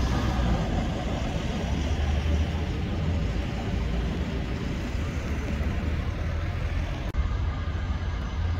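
Heavy diesel vehicle engines running steadily: a continuous low rumble. The sound changes abruptly with a click about seven seconds in.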